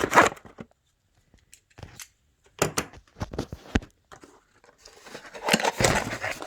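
Packaging being handled during an unboxing: scattered clicks and rustles, then denser rustling in the last second and a half.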